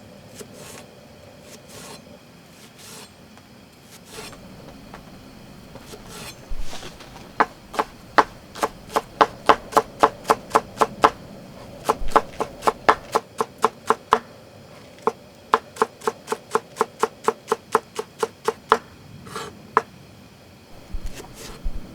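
Knife chopping on a cutting board in quick, even strokes, about three to four a second, in a few runs with short pauses, starting several seconds in.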